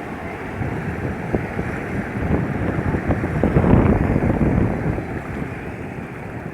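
Sea waves washing on a beach, with wind buffeting the microphone; one wave swells to its loudest about three and a half seconds in, then eases off.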